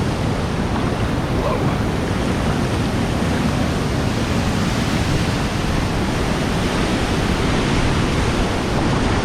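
A waterfall and the rushing stream water below it, a steady loud rush of falling and flowing water.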